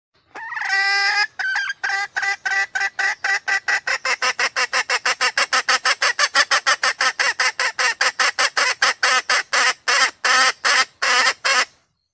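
Female red junglefowl calling: one drawn-out note, then a fast, even run of short notes, about four a second, that goes on for about ten seconds. It is the hen's call that draws males in.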